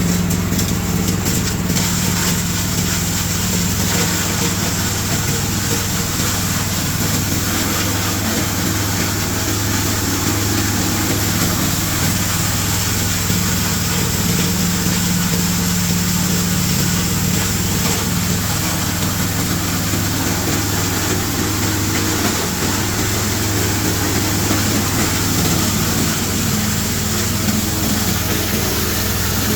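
G-50 multipurpose shredder-grinder running steadily while grinding coconut shell waste through a 5 mm screen: a constant machine hum under a dense, even grinding noise.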